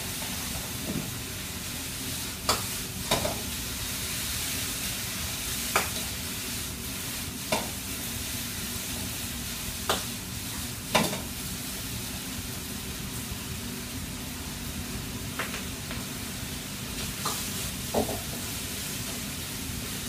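Food sizzling and frying in woks over gas burners, with a metal utensil knocking sharply against a wok about nine times at irregular intervals as the food is stirred and tossed.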